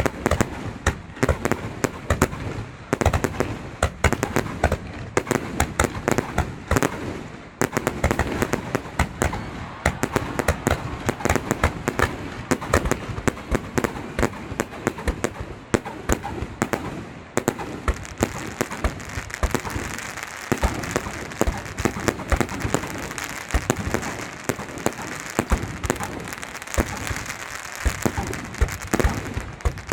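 Fireworks going off in dense volleys: rapid sharp bangs and pops, several a second. From a little past halfway, a steady high crackling hiss builds under the bangs.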